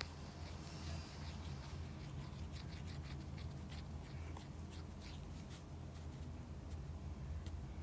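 A stylus tapping and brushing on a tablet's glass screen in many short strokes, over a steady low hum.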